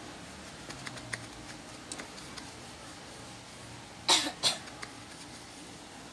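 Two short coughs close together about four seconds in, over faint scattered clicks of a stand-fan motor and its shaft being handled.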